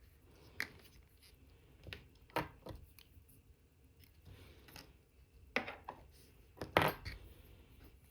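Small watchmaker's tools clicking and scraping against a watch movement during assembly: a few irregular light clicks and short scrapes, the loudest about seven seconds in.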